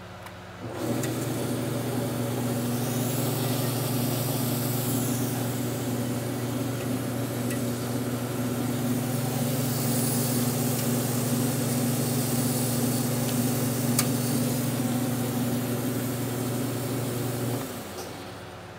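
Jet vertical bandsaw starting up about a second in and running steadily with no load, a motor hum under the hiss of the moving blade. It is switched off near the end and winds down quickly.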